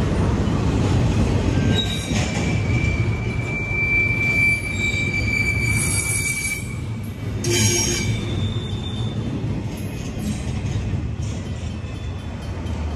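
Double-stack intermodal freight train's last cars rolling past, with a low rumble of wheels on rail and a steady high wheel squeal from about three seconds in until past the middle. A brief sharp sound comes about seven and a half seconds in, and the rumble eases as the end of the train goes by.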